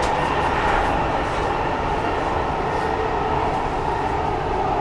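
Dubai Metro train running between stations, heard from inside the carriage: a steady rumble and rush of running noise with a constant whine in it.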